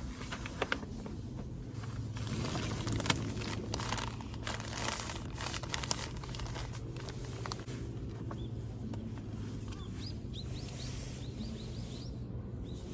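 Clicks and crinkling from gear being handled, then a small bird chirping repeatedly in short rising notes, over a steady low hum.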